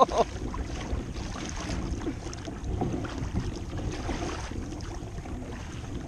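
Water rushing and slapping along the hull of a sit-on-top kayak as a hooked bluefin tuna tows it with the motor off, with wind buffeting the microphone.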